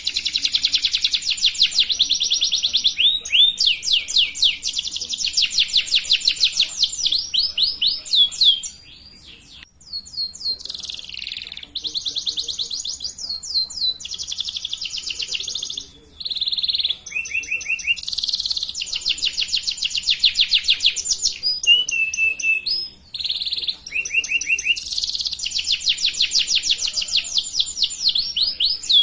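Domestic canary singing in long, high, rapid trills of quickly repeated notes, with short breaks about nine, sixteen and twenty-three seconds in.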